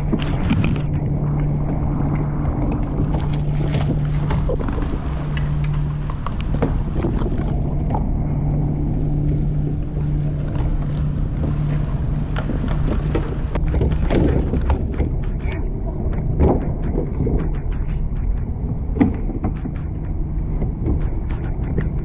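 Steady wind and water noise around a kayak, with a low engine drone through roughly the first half. In the second half come scattered knocks and rubbing as a speared crevalle jack is handled on the kayak.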